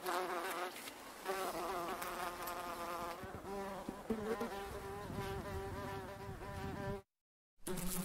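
Flies buzzing, the wingbeat tone wavering up and down in pitch. The buzz cuts off about seven seconds in, and another buzz starts just before the end.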